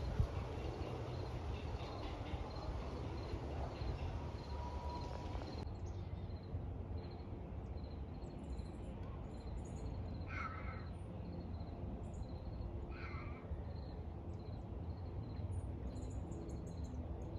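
American crow cawing twice, about three seconds apart, over a steady low outdoor rumble, with a faint high chirp repeating evenly about twice a second.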